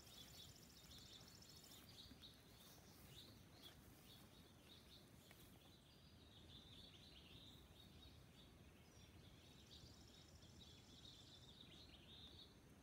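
Near silence: faint outdoor ambience with birds chirping.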